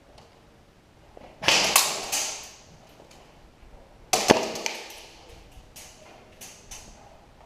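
Airsoft gunfire in a building: two loud bursts of shots about two and a half seconds apart, each trailing off over about a second, then scattered sharp clicks.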